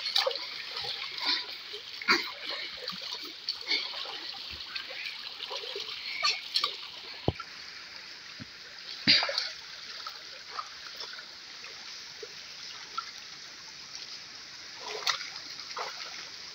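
Shallow river water splashing as handfuls are scooped and poured over a bather, now and then, over the steady rush of the flowing stream.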